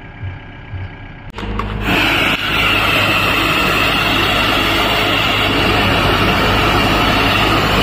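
A Cat 432 backhoe loader's diesel engine idling, then about a second and a half in a pressure washer jet starts and hisses steadily against the machine's bodywork.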